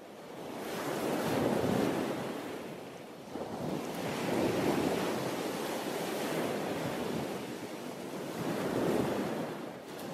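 Rushing ocean surf, fading in at the start and then swelling and falling back three times as waves break and draw away.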